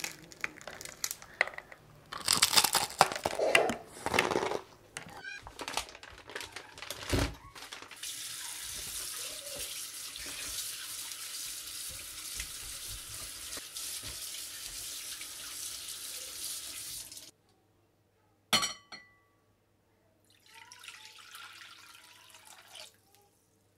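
Crispy fried chicken being bitten and pulled apart, with loud irregular crunches over the first several seconds. Then a kitchen tap runs steadily into a steel sink as raw chicken is rinsed in a plastic colander, cutting off suddenly. After a single knock, water is poured from a measuring cup into a bowl.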